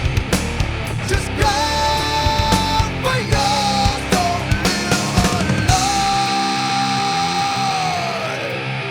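Heavy nu metal band recording: distorted rock instruments over pounding drums, with long held high notes, the last one sliding down near the end. The bass end drops out a little past halfway.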